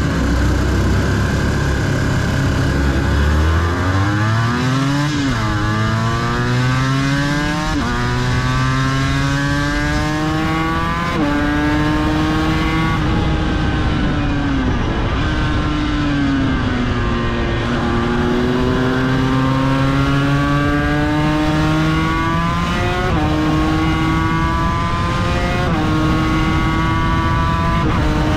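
Aprilia RS250's 249 cc two-stroke V-twin racing engine heard onboard at full throttle. Its pitch climbs and drops sharply at each upshift, three times. It then falls away steadily for several seconds as the bike slows, and climbs through four more upshifts.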